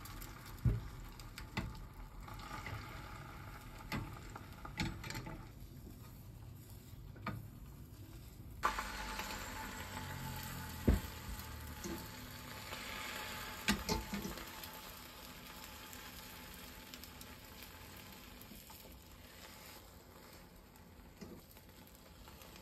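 Beaten egg sizzling in a hot oiled rectangular tamagoyaki pan, with chopsticks knocking and scraping against the pan as the omelette is rolled. The sizzle level changes abruptly a little before halfway through.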